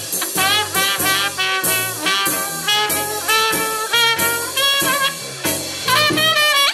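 Swing-style jazz with brass instruments playing over a Telefunken HP 830 T stereo boombox during a sound test. Near the end a note slides upward.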